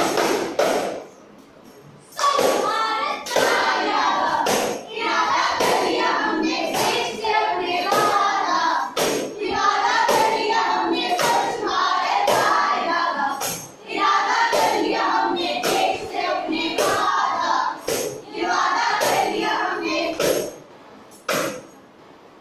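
A group of young voices singing and chanting together to a steady beat struck on a tambourine, pausing briefly about a second in and again near the end.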